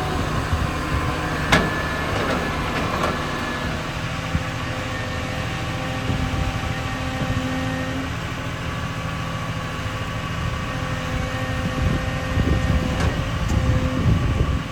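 CAT 150 motor grader's diesel engine running steadily, with a sharp knock about a second and a half in and a louder stretch near the end.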